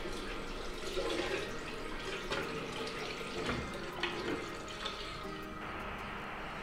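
Water running from a bathroom sink tap and splashing into the basin during face washing.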